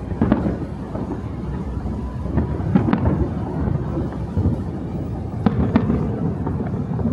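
Fireworks display: aerial shells bursting in sharp bangs every second or two over a continuous low rumble.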